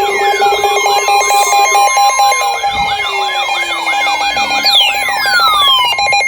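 Electronic emergency alert tones: steady tones layered with a wailing siren tone that rises and falls about three times a second, fast pulsing, and several long falling sweeps.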